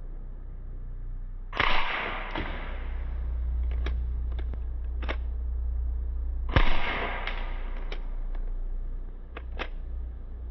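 BB gun shots: two sharp pops about five seconds apart, each followed by a short hissing tail, with several lighter clicks between and after them.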